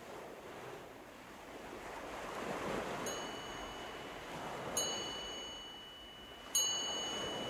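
Surf washing in and out in slow swells, with three bright chime strikes about a second and a half apart, each left ringing.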